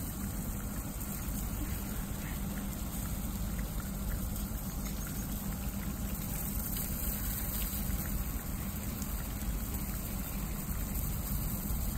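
Mini-sprinkler irrigation running: water spraying and trickling from the sprinkler line, over a steady low rumble.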